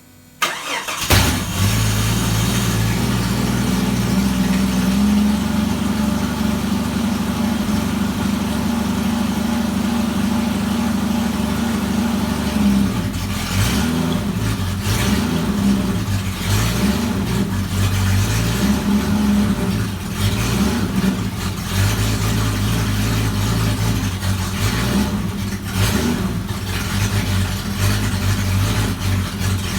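Jeep Cherokee XJ engine starting about half a second in and then running steadily, with no belt squeal now that the pulley and belt have been replaced.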